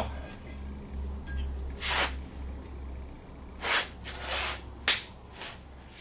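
Knife cutting through a Kaowool ceramic fibre blanket, a few short scratchy strokes as a hole is cut for the torch, over a low steady hum.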